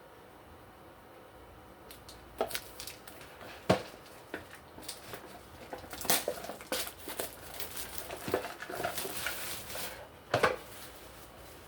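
Household handling noise in a small room: scattered clicks and knocks with rustling, starting about two seconds in, with a sharp knock near four seconds and a double knock near the end.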